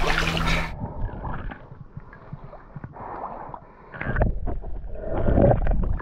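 Muffled water sounds at a snorkeller's head-mounted camera, at or just below the surface: sloshing and gurgling, with louder surges about four seconds in and again near the end.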